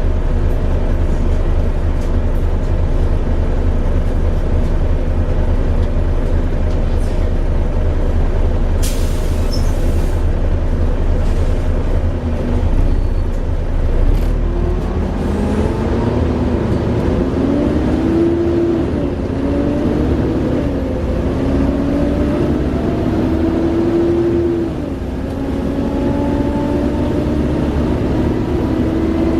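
Class 37 diesel locomotive 37030's English Electric V12 engine running with a steady low throb. From about halfway it powers up and a loud turbocharger whine rises, dips and settles into a held tone: the 'Hoover' sound. A short hiss of air comes about a third of the way in.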